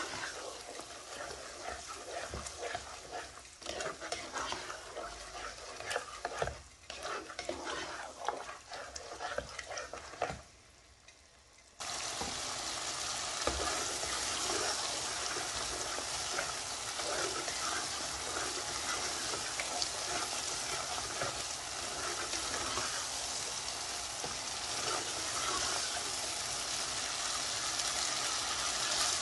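Lamb and yogurt masala sizzling in a metal karahi, with a spoon stirring and scraping against the pan for about the first ten seconds. After a brief silent break about eleven seconds in, there is steady, dense sizzling as the curry cooks down.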